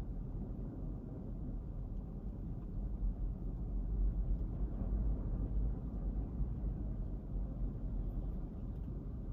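Low, steady rumble of ocean surf and wind, swelling a little about four seconds in.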